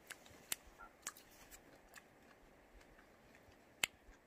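Faint, scattered sharp clicks and crackles, about half a dozen, the loudest about four seconds in.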